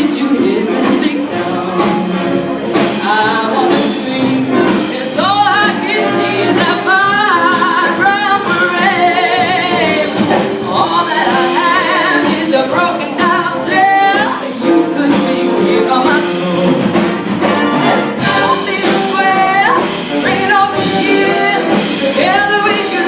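Big band swing music played live by a full orchestra, its lead melody line wavering with vibrato over the band.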